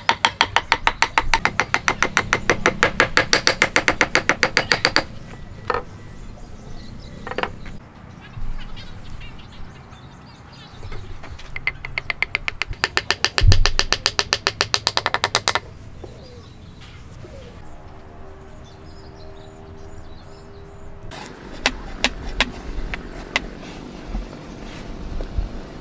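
Rapid, evenly spaced hammer taps, several a second, driving a wooden tenon down into its mortise to lock a timber joint. After a pause with a couple of single knocks, a wooden mallet taps a small square peg into the joint in a second quick run, with one heavier thump. Then lighter clicks and knocks as wooden blocks are set down on the workbench.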